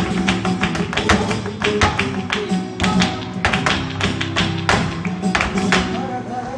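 Flamenco zapateado: a dancer's heels and toes striking the stage in rapid, sharp stamps, mixed with palmas hand-clapping over flamenco guitar. The stamping thins out near the end as she stops.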